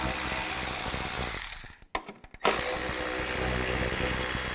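Small handheld power driver with a 10 mm socket spinning out the tail light housing's screws in two runs. The first run stops just under two seconds in, and after a short pause the second starts and carries on.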